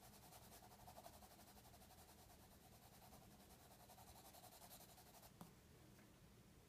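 Pencil shading on paper, faint rapid back-and-forth scratching strokes that stop about five seconds in, followed by a light tap.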